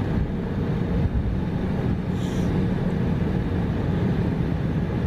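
Steady cabin noise of an Embraer 175 taxiing, with its GE CF34 turbofans running at low power and a low rumble throughout.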